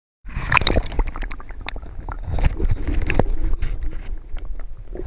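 Water splashing and gurgling around a camera held underwater, with many sharp knocks and clicks and a low rumble.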